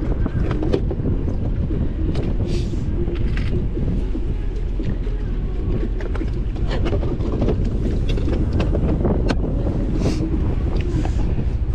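Wind buffeting the microphone over a steady low rumble, with scattered sharp clicks and taps.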